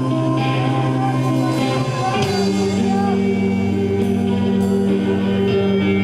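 Live rock band playing, with sustained chords over a steady bass that changes chord about two seconds in.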